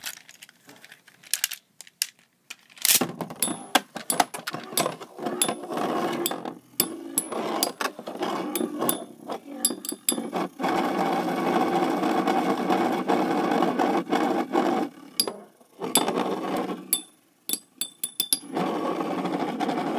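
Two Hasbro Beyblade Metal Masters tops, Hyper Orso and Grand Cetus, spinning in a plastic stadium: a steady whirr with rapid sharp clicks as their metal wheels clash and scrape. The sound starts about three seconds in and drops out briefly twice near the end.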